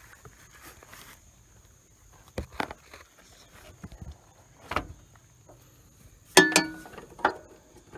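Scattered knocks, then a loud ringing metal clank about six seconds in and a smaller knock just after. This is metal tools and hardware striking a riding mower's deck mount as the deck mounting pin is pried loose.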